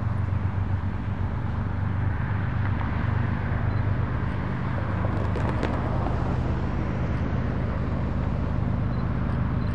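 Cars driving past on the road, with tyre and road noise over a steady low engine hum.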